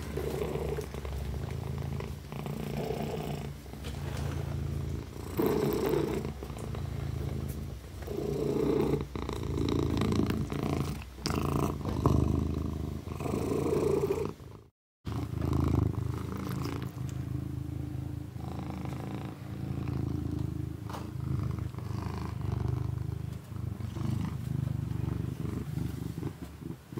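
Domestic cat purring, a steady low rumble that swells and eases every few seconds, cut off for a moment about halfway through.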